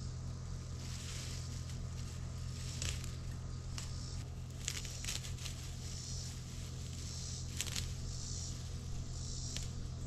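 Rice paddy herb stems being cut by hand: short sharp snips every second or two, some in quick pairs, with the leafy stems rustling, over a steady low hum.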